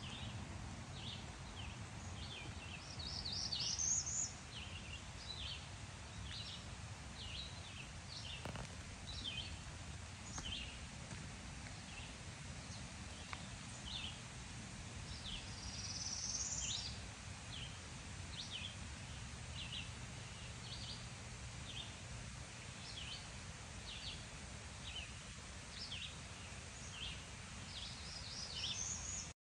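Faint birdsong over a low, steady outdoor background. Short high chirps come about once a second, and a few longer calls rise in pitch: one about 3 seconds in, one in the middle and one near the end.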